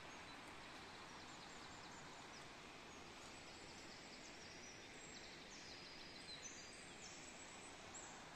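Near silence: a faint steady hiss with faint high bird chirps and trills, a little clearer in the second half.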